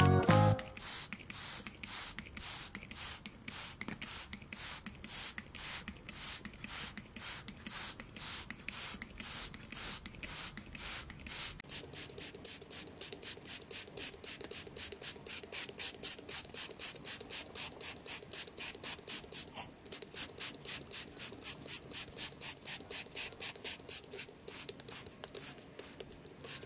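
Hand-held trigger spray bottle squeezed over and over, each squeeze a short hiss of water mist onto potting soil in a seed tray. The squirts come about two or three a second, then speed up to about four a second from about halfway.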